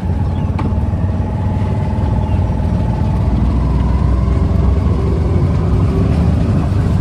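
Auto-rickshaw's small engine running steadily as the three-wheeler drives along, heard from inside the open passenger cabin as a loud, even low rumble.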